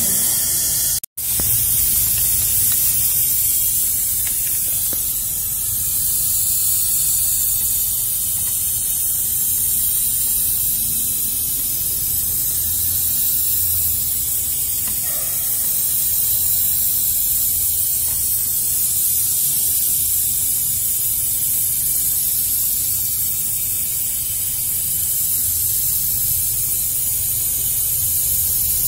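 Compressed air hissing steadily through an air chuck held on the valve stem of a truck's dual rear tire, inflating the tire. The hiss breaks off for a moment about a second in.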